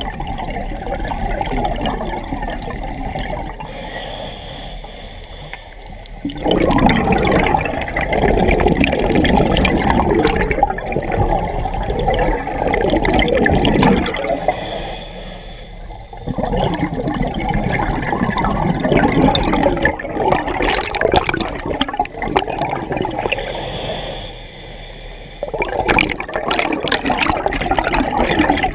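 Scuba diver breathing on a regulator, heard underwater: long rushes of exhaled bubbles streaming past the mask, broken twice by shorter, quieter inhalations with a hiss.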